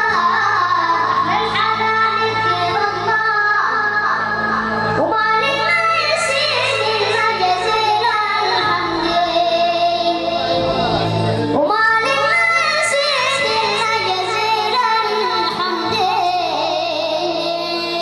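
A munshid singing a mawwal: long, ornamented vocal phrases that slide and bend in pitch, in a high voice, over steady held low notes of accompaniment.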